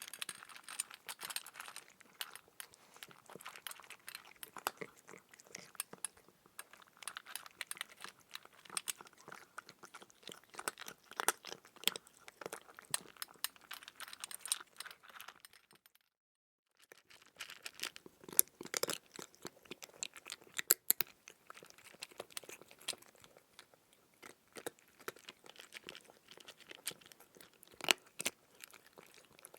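Crunchy chewing sound effect: a dense, irregular run of crackling crunches, as of crisp food being bitten and chewed. The sound cuts out completely for under a second about sixteen seconds in, then carries on as before.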